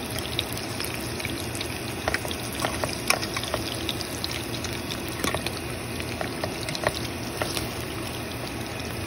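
Ground beef patties sizzling in hot oil in a pan: a steady hiss with frequent small crackles and pops.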